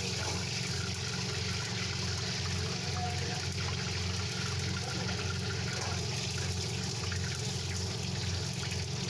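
Steady rushing roar of a commercial gas wok burner heating oil in an iron wok, over a low, gently pulsing hum.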